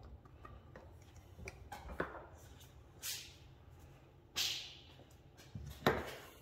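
Handling noises at a wooden workbench: a small click, two short rushing scrape sounds, and a sharp knock near the end as the micron gauge is picked up off the bench.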